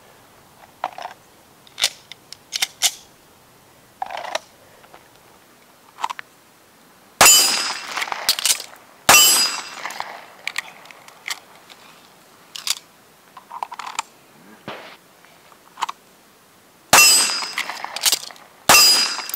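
Four handgun shots in two pairs, each pair about two seconds apart. The first shot of each pair empties a one-round magazine so the slide locks back, and the second comes after a quick reload. Lighter clicks and clacks of handling come between the shots.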